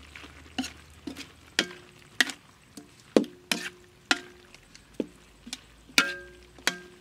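A metal utensil knocking and scraping against a wok as pork and vegetables are stir-fried, about two sharp clanks a second, some ringing briefly.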